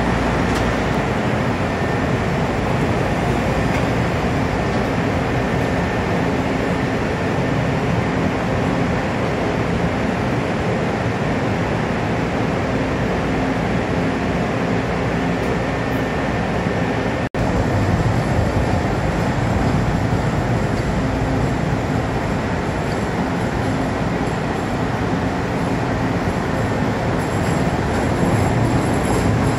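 Chicago "L" rapid transit train at an underground station platform: a steady rumble and hum of the train. After a brief cut about halfway through, the rumble is fuller as a train rolls in along the platform, with a faint high wheel squeal.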